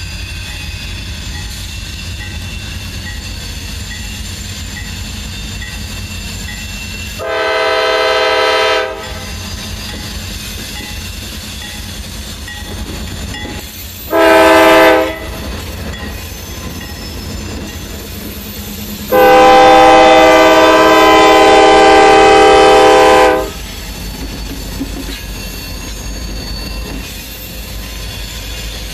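CSX diesel freight locomotive's air horn sounding three times: a blast of about two seconds, a short one, then a long one of about four seconds. Under it, the locomotives and freight cars pass close by with a steady low running noise.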